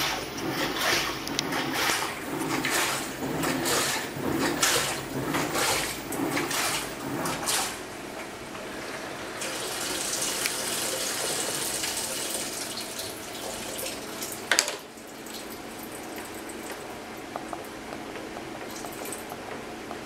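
LG top-loading washing machine agitating its drum of water, the water sloshing in rhythmic surges about once a second. About eight seconds in the agitation stops as the cycle is paused; a few seconds of hiss follow, then a sharp click and a steady low machine hum.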